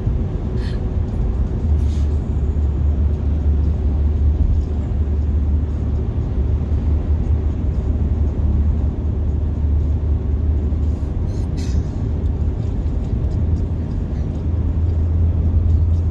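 Steady low rumble of road and tyre noise heard from inside a car's cabin cruising at highway speed.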